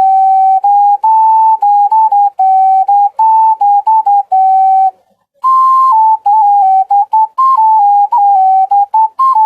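Five-hole ocarina played using only three of its holes: a loose melodic run of clear, pure notes stepping among a few nearby pitches, with a short break about five seconds in before a second phrase that starts on a higher note.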